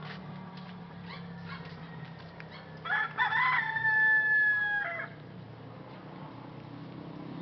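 A rooster crowing once, a single crow of about two seconds starting about three seconds in.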